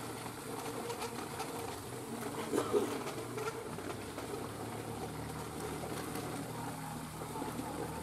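Faint distant voices over outdoor background noise, with a low steady hum coming in about halfway through.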